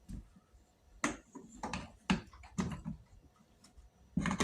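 Parts of a Kirby vacuum cleaner being handled and fitted together: a series of short clicks and knocks, several about half a second apart, with the loudest near the end.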